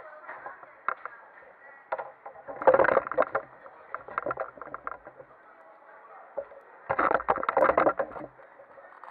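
Indistinct crowd chatter, with two bursts of close handling noise, rapid plastic clattering and knocking on the table, about two and a half seconds in and again about seven seconds in.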